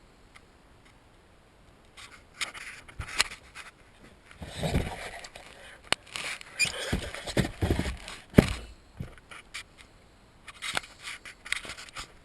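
Scraping and rustling with several sharp knocks as parts in an SUV's jack compartment are handled, in three spells: about two seconds in, from about four to nine seconds, and near the end.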